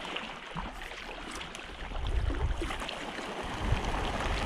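A flock of coots flushing out of reeds across the water, a noisy splashing rush that grows louder about two seconds in.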